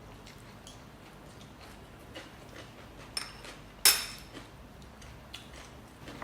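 Cutlery clinking against dishes while eating: scattered small clicks, a sharper clink a little after three seconds and one loud clatter about four seconds in.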